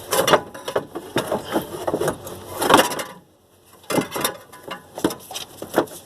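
Irregular knocking, clattering and scraping of hand work on parts in a pickup truck's engine bay as a part is worked loose, with a short pause a little past halfway.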